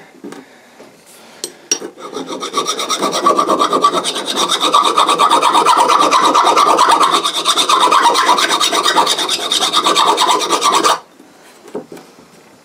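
Hand file scraping across the steel of a small axe head in quick, steady strokes, knocking down a ridge on the head. The filing starts about two seconds in and stops shortly before the end.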